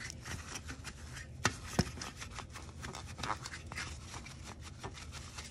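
A disinfectant wipe rubbing over the inside of an empty clear plastic nail-tip box, with gloved hands scuffing and the hinged plastic case clicking and knocking; two sharper clicks come about a second and a half in.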